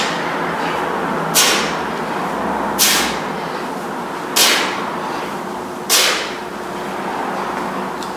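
Sharp, hissing breaths forced out in rhythm with single-arm kettlebell swings, one about every second and a half; they stop about six seconds in.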